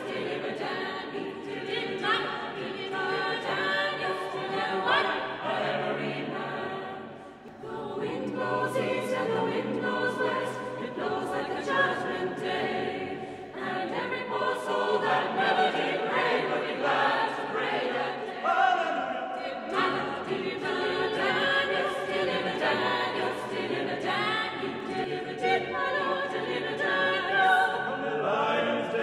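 Mixed chamber choir singing in parts. There is a brief dip in the singing about seven seconds in.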